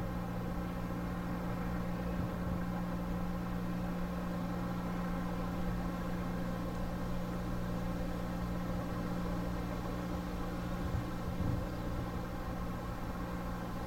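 An engine running steadily, a constant low hum with a held tone that does not change in pitch.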